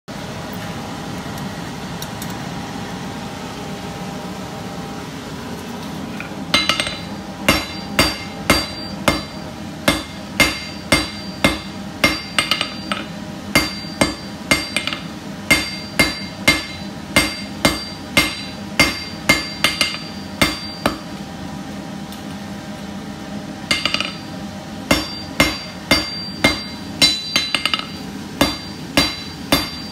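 Hand hammer striking hot steel on an anvil, about two blows a second, each with a bright metallic ring. The blows begin about six seconds in, after a steady hum. They stop for about three seconds after the middle, then resume.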